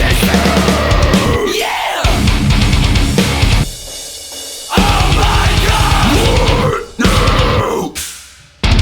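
Loud heavy metal music with drums. It drops to a quieter held passage for about a second near the middle, and fades out briefly near the end before kicking back in.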